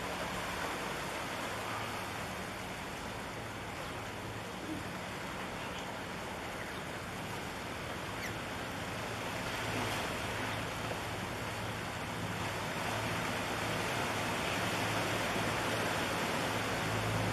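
Water washing against a rocky shore, under the low steady hum of a large tanker's engine as the ship passes; the hum grows louder near the end.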